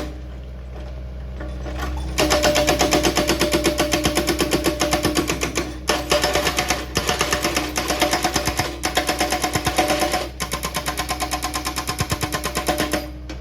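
Hydraulic rock breaker on an excavator hammering rock in rapid, evenly spaced blows, in three runs with short pauses between, over the steady hum of the machine's engine.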